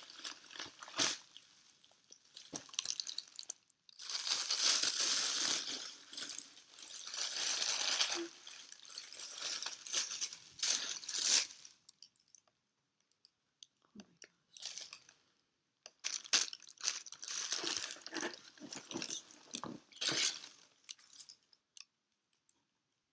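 Plastic packaging and tissue paper crinkling and rustling as a shoebox is unwrapped, in two long stretches with a quieter pause between them.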